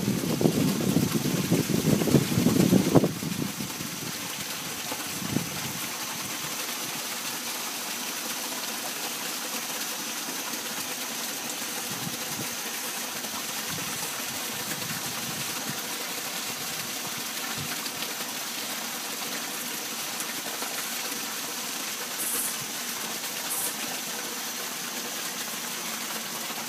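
Steady rush of running water at a koi pond, with a faint high steady tone over it. For about the first three seconds a jumbled low rumble of wind or handling on the microphone sits on top.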